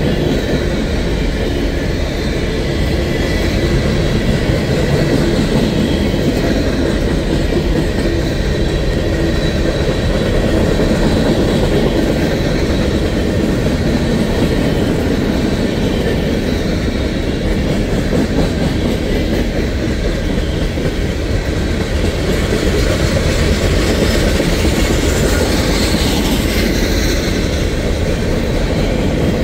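Freight cars of a CSX manifest train rolling past, making a steady rumble and clatter of steel wheels on the rails.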